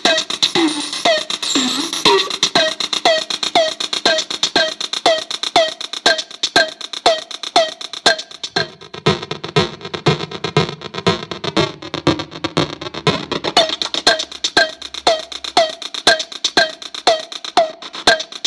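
Circuit-bent Korg DDD-1 drum machine run through a digital manipulator effect, looping a short pitched hit that drops in pitch about twice a second, with glitchy clicks between the hits. From about eight to thirteen seconds in, a denser, lower stuttering pattern joins.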